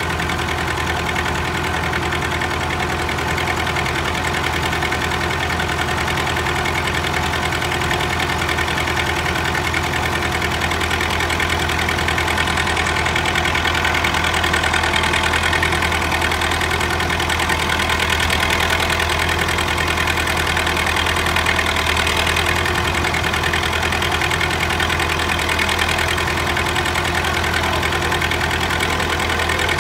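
Tractor diesel engines running steadily at a constant speed, one of them driving a vertical feed mixer wagon through its power take-off shaft.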